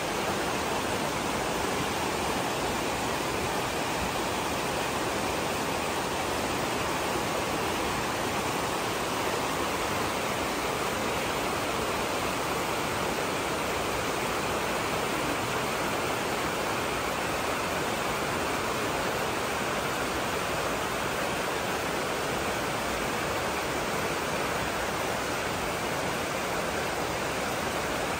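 Fast-flowing river rushing steadily, a constant even wash of water noise.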